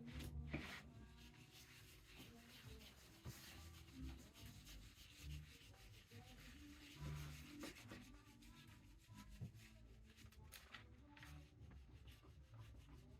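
Faint, continuous rubbing and scraping from hand work on a relief print, with a few soft low knocks.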